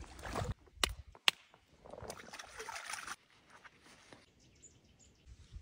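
Hands handling gear at the kayak, rustling with a paper towel and a knife, with two sharp clicks about a second in. The rustling stops suddenly after about three seconds, leaving quiet open air with a couple of faint high chirps.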